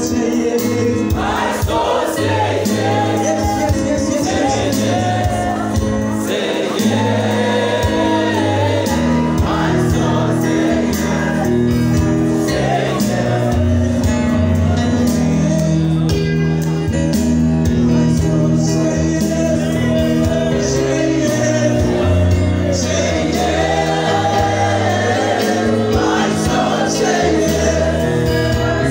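Gospel worship music: a congregation singing together over sustained bass notes, with a steady beat of claps or percussion.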